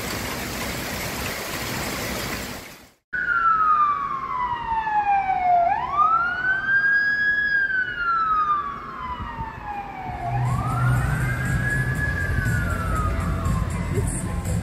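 Heavy rain hissing steadily, cut off sharply about three seconds in. Then a siren wails, its pitch sliding slowly down and back up about twice, with crowd noise and a low hum coming in under it near the end.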